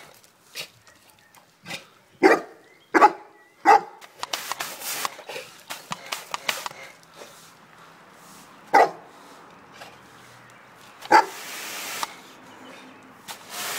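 Cane Corso barking at a jet of water from a mini washer: three barks in quick succession about two seconds in, then two more single barks a few seconds apart. The water spray hisses after the last bark.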